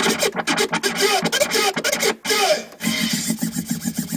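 DJ scratching over a hip hop mix, with short back-and-forth scratches and quick cuts. About three seconds in, the scratching gives way to a track with a steady beat.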